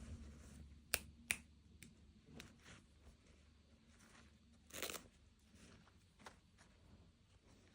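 Two sharp clicks about a second in, then a short rustle near the middle, with faint handling sounds between: small plastic toy pieces and packaging being handled during an unboxing.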